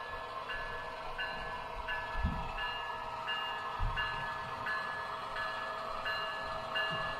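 Electronic bell of the HO scale model railroad's sound system ringing steadily, about one and a half rings a second, over a steady hum, as a model train runs. Two low thumps come in the middle.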